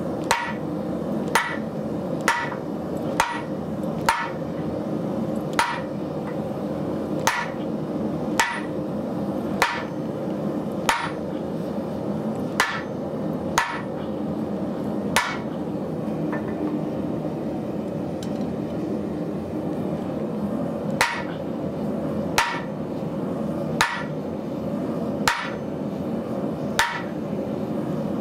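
Sledgehammer blows on a square steel drift held in tongs, driving it into red-hot heavy-wall steel tubing to open it square for a power hammer bolster. Sharp ringing clangs about one a second, with a pause of several seconds in the middle, over a steady hum.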